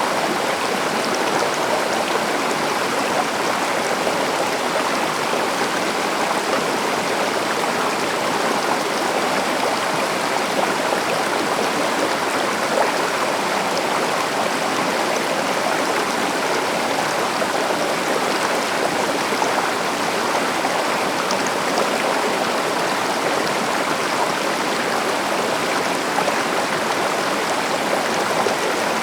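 A stream or small river rushing and babbling steadily over rocks, an even wash of running water with no pauses.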